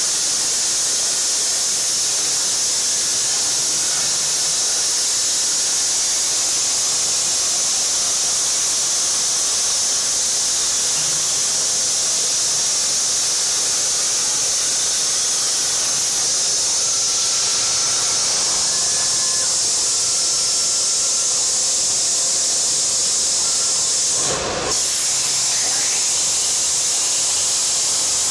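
Plasma cutting torch running: a loud, steady high-pitched hiss of the arc and its air stream, with a short break about three-quarters of the way through.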